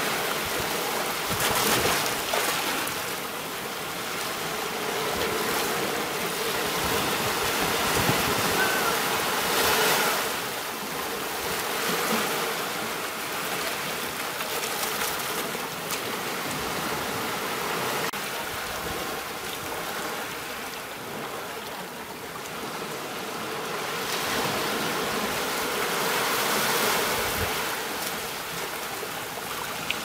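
Ocean surf washing up a shore: a steady hiss of breaking waves that swells and eases every few seconds.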